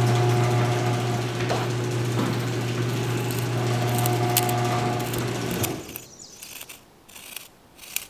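A steady low machine hum, like a small electric motor running, with a fainter higher tone above it; it cuts off about six seconds in.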